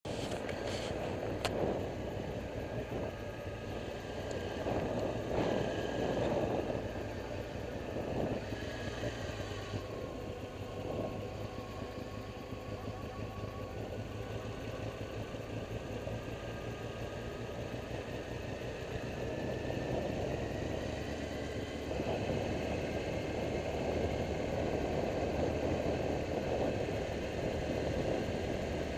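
Motorcycle engine running under way with wind and road noise. The engine note falls a little around ten seconds in and climbs again around twenty seconds in.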